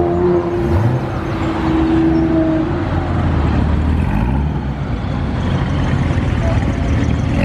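Car engines running, with engine pitch rising and falling a few times as one is revved.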